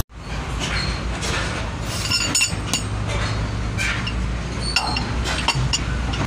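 Steel wheel wrench clinking against the wheel nuts of a container truck's ten-stud rear wheel as the nuts are undone by hand. A string of irregular sharp metal clinks sounds over a steady low hum.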